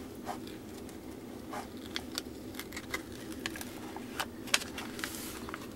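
Plastic cover film on a diamond painting canvas crackling and rustling in scattered small ticks as hands press and smooth it, over a steady background hum.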